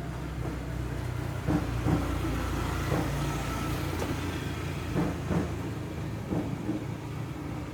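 Strong wind rumbling, with a few separate knocks or clicks through it.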